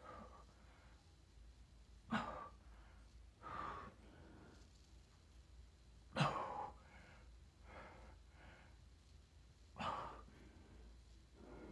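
A man's heavy breathing while doing Superman holds: three sharp, forceful exhales about four seconds apart, with softer breaths between them.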